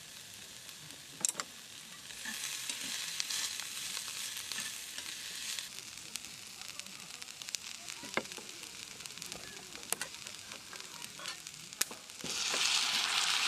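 Food sizzling in a hot pan, in two spells: one starting about two seconds in and fading after a few seconds, and a louder one starting near the end. Scattered light clicks and taps run through it.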